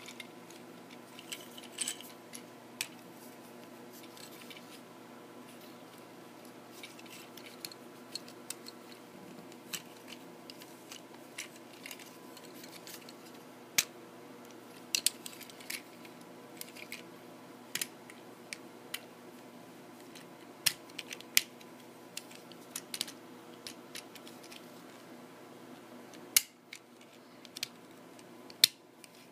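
Plastic joints and panels of a Transformers Combiner Wars Off-Road figure clicking as it is transformed by hand into its truck mode. The clicks are scattered, sharp and irregular, over a faint steady hum.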